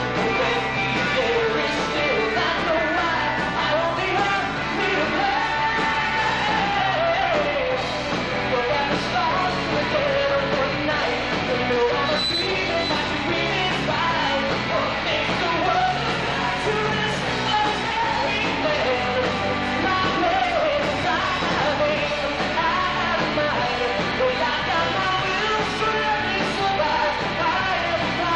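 A rock band playing live, with a male lead singer over electric guitar, bass, keyboards and drums.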